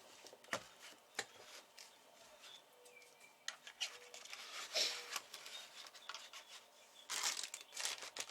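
Hands handling small objects: scattered light clicks and rubbing, with a louder stretch of rustling about seven seconds in.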